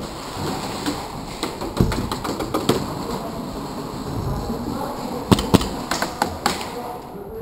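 Sharp snaps and taps of airsoft fire and BBs striking hard surfaces: a quick string of light clicks about a second and a half in, then two louder cracks about five seconds in, followed by a few scattered taps.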